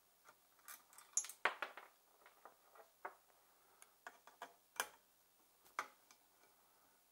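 Irregular small metallic clicks and taps of a T-handle Allen key working out the bolts that hold the ignition coil on a 50cc two-stroke pocket bike engine. The loudest clicks come about a second and a half in and again near five seconds.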